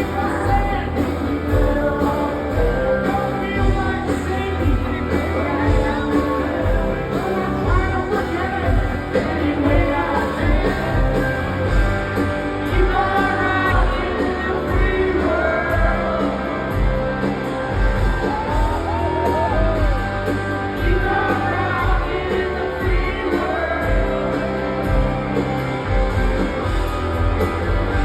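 Live rock band playing a song with singing over a steady drum beat, heard from the audience in a large venue, with occasional shouts and whoops from the crowd.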